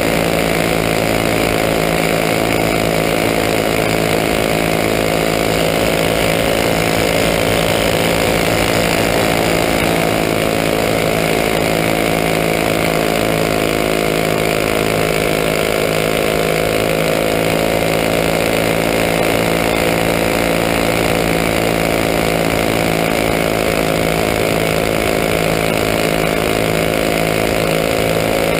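Racing champ kart's small engine running flat out at racing speed, heard close up from a camera mounted on the kart, its pitch holding nearly steady with small rises and dips.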